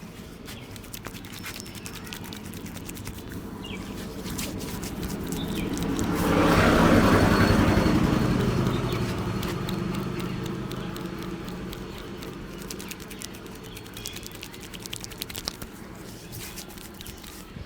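A vehicle passing by: its noise swells to a peak a few seconds in, then slowly fades away. Light clicks and taps sound throughout.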